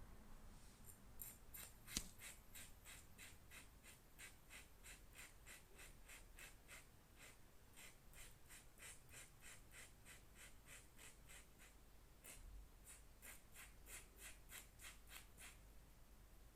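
Diamond needle file rasping on the end of a speed cube's tensioner spring in even, faint strokes, about three a second, with a brief pause near the end of the run. The spring's sharp end is being filed down to an angle so that it stops scraping inside the tensioner. A single sharper click comes about two seconds in.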